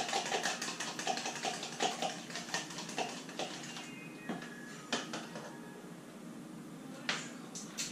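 An egg being beaten in a glass bowl: a quick run of clicking strokes against the bowl for about the first three seconds, then it stops. After that come a few separate knocks of kitchen items being handled, the loudest around seven seconds in.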